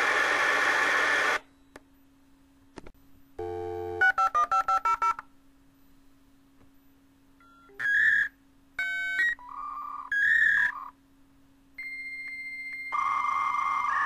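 Dial-up modem connecting: its hissing handshake noise cuts off about a second in, then after a short pause come a burst of dial tone and seven quick touch-tone dialing beeps. A few short electronic tone bursts follow, then a steady high answer tone, and the modem's hissing, warbling handshake screech starts again near the end.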